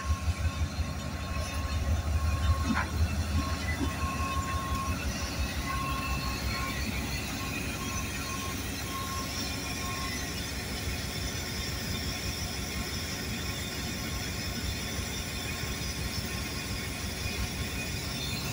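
Freight train led by diesel locomotives rolling slowly past close by: a pulsing diesel engine rumble, loudest in the first few seconds as the lead locomotive goes by, then a steady rumble of engines and wheels on the rails. A faint high squeal comes and goes through the first half.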